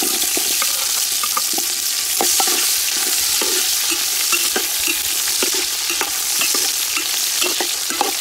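Shallots and lemongrass sizzling in hot oil in a large aluminium pot, a steady hiss, while a metal ladle stirs them, knocking and scraping against the pot many times.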